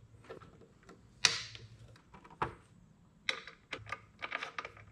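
Metal hand tool and blade-guard parts of a DeWalt DWS779 miter saw clicking and clacking as the guard bracket is refitted: a handful of sharp clicks, the loudest about a second in.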